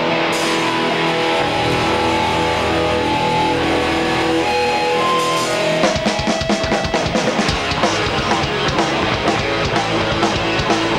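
Live hardcore band: electric guitars hold ringing chords, and about six seconds in the drum kit comes in and the full band plays at a driving pace.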